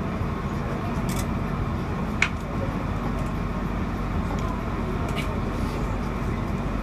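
Singapore MRT train heard from inside the carriage while running between stations: a steady rumble of wheels and motors, with one sharp click about two seconds in.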